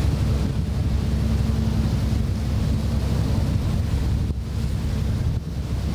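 Wind buffeting the microphone over the steady drone of a moving boat's engine, with water rushing past the hull.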